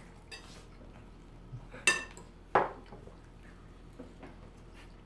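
Metal spoons clinking against ceramic plates as fried rice is scooped up: two sharp clinks about two seconds in, a little over half a second apart, the first with a bright ring, among a few lighter taps.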